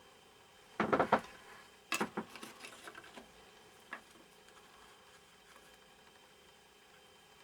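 Short bursts of scratching and clicking about one second and two seconds in, then a single click near four seconds: small handling and scrubbing noises from cleaning the dirty circuit board of a TV remote control.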